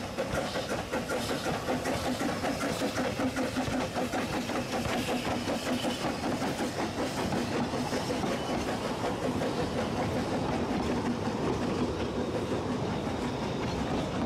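Narrow-gauge steam train of the Ffestiniog Railway passing at low speed as it pulls away, a regular beat of exhaust and wheels about three times a second over a steady low hum, as the carriages roll by.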